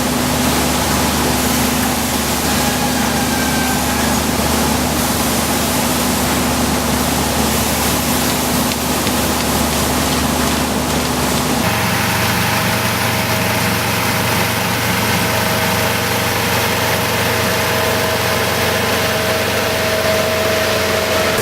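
Rice harvesting machine's engine running steadily. About twelve seconds in, the drone switches abruptly to a different steady engine note.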